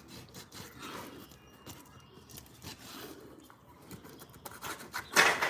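Wet scrubbing and scraping on a concrete floor, working at clotted spoiled-meat juice stuck to the concrete: soft, uneven rubbing strokes, with one louder, sharper swipe near the end.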